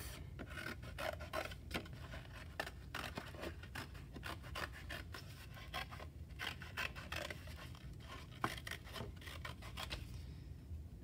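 Small scissors cutting thin cereal-box cardboard: a quick, irregular run of short snips, several a second, as a curved shape is cut out with partial, half-closed strokes.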